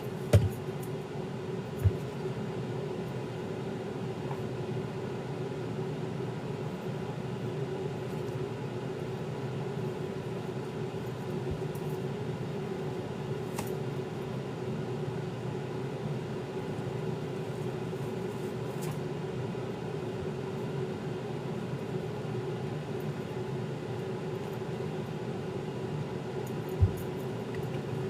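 A steady mechanical hum with a few short, faint knocks, two near the start and one near the end.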